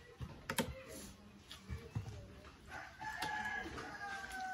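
A rooster crowing, one long held call starting a little past the middle and falling slightly in pitch. Before it, metal spoons click and scrape against young coconut shells.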